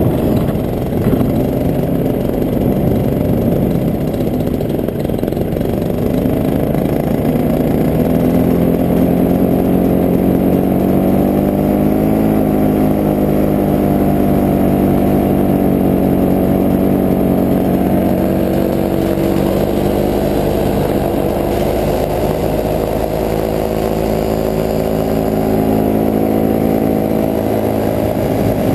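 Paramotor engine and propeller running steadily in flight. The engine note rises slowly after a few seconds, holds, then eases back down a little in the second half.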